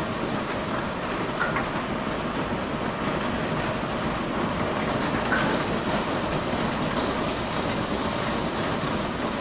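Hail and heavy rain coming down in a hailstorm: a steady, dense patter of small hailstones and rain on pavement, car and lawn, with now and then a sharper tick.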